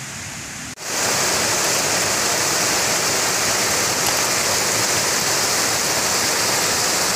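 Water rushing steadily over a concrete weir spillway, a loud, even sound. It comes in abruptly about a second in, after a softer, quieter stretch of noise.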